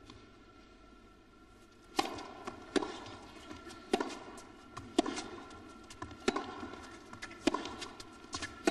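A tennis rally. The serve is struck about two seconds in, then sharp racket-on-ball hits and ball bounces follow every second or so, echoing in an indoor arena.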